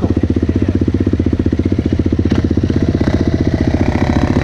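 Sport quad (ATV) engine idling with a quick, even pulse. A second engine note rises in pitch near the end.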